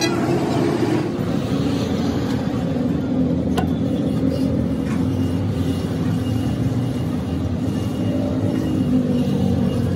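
A steady engine hum running without a break, with a single sharp metallic clink about three and a half seconds in.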